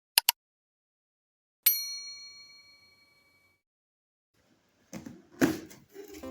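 Two quick clicks, then a single bright bell-like ding that rings and fades over about two seconds. Near the end comes a brief rustling whoosh and a thump.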